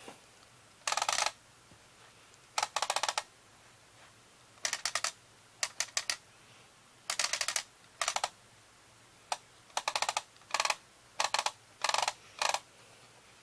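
About a dozen short bursts of rapid clicking, each up to half a second long, at irregular intervals with quiet between them.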